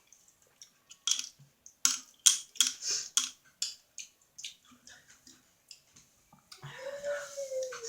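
Close-miked eating sounds: a run of wet mouth clicks and chewing smacks, then sparser clicks, and a short voiced sound from the throat with a slightly falling pitch near the end.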